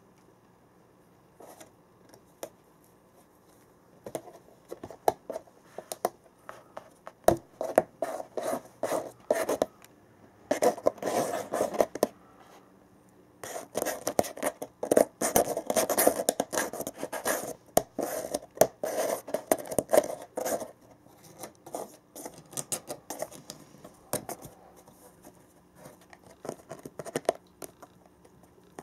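A Norwegian Forest cat clawing and scraping at a cardboard printer box in rapid, scratchy bursts. The scratching starts a few seconds in, comes in two heavy spells and thins out over the last few seconds.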